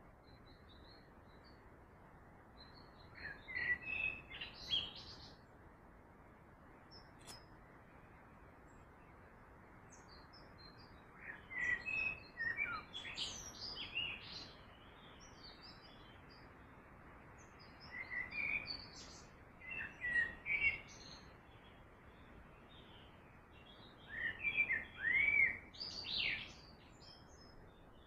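Small birds chirping and whistling in four short bouts over a steady, faint rush of running water.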